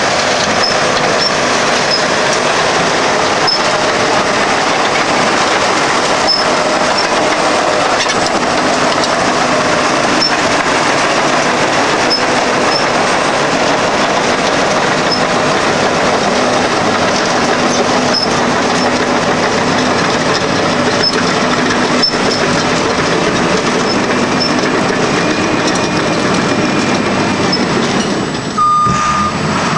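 John Deere 750C crawler dozer running and travelling: a steady engine-and-machinery noise with scattered short high squeaks and clanks from its steel tracks. Near the end its reversing alarm starts beeping.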